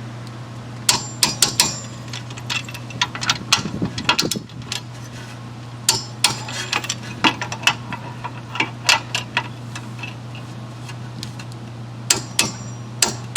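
Click-type torque wrench ratcheting and clicking in several short bursts as the front wheel hub bolts are re-checked at 44 foot-pounds. A steady low hum runs underneath.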